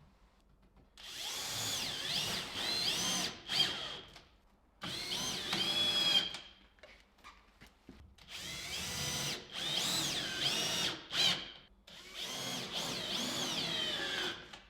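Power drill run in four bursts, its motor pitch rising and falling as the trigger is squeezed and eased.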